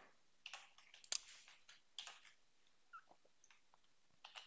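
Faint computer keyboard keystrokes: a handful of separate key clicks spaced about a second apart as code is typed.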